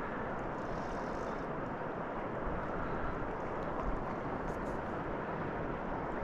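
Steady rush of fast-flowing river water.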